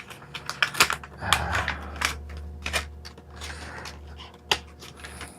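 A USB cable's packaging being opened and handled by hand: irregular clicks and taps with short bursts of rustling.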